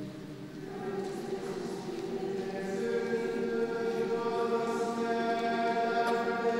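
A choir sings long, slow held notes in a chant-like style, and the sound fills out and grows louder after about two and a half seconds.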